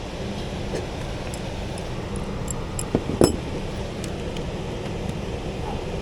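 A few light clinks of hard objects over a steady low rumble, with a sharper double knock about three seconds in.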